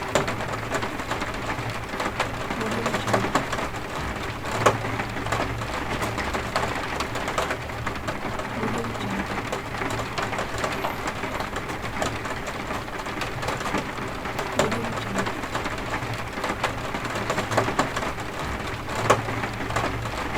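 Strong, steady rain heard from indoors outside a window, a dense patter with scattered sharper drop taps, two of them louder, about a fifth of the way in and near the end.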